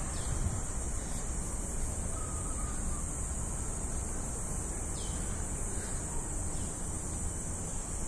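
Steady, high-pitched drone of insects over a low outdoor rumble, with a few faint short chirps here and there.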